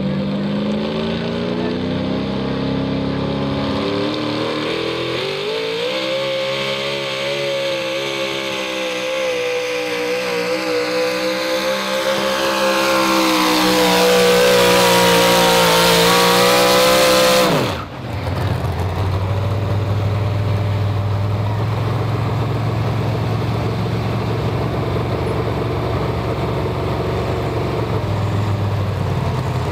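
4x4 pulling truck's engine revving hard under load as it drags the sled, its pitch climbing for about twelve seconds to a screaming peak. About 18 seconds in the throttle snaps shut, the revs fall away at once, and the engine settles to a low idle.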